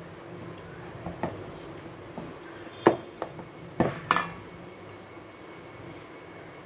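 Metal spoon clinking and knocking against a glass mixing bowl as it works a thick chicken mixture. There are a handful of knocks, the loudest about three and four seconds in, and then they stop.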